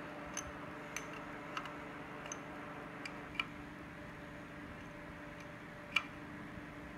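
Wrench clicking in short, sharp single clicks as the injection pump bolts on a VW 1.6L diesel are tightened down carefully. The clicks come about every half second for the first few seconds, then a louder one near the end, over a faint steady hum.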